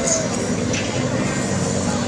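Tour bus engine running with a steady low rumble as the bus goes by.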